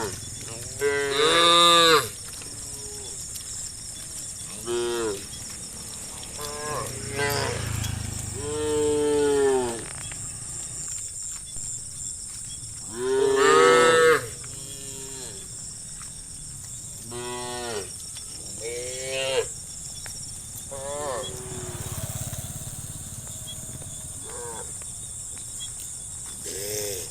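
Cattle mooing: a dozen or so separate calls, short and long, some rising and falling in pitch. The loudest come about a second in, around nine seconds and around thirteen seconds.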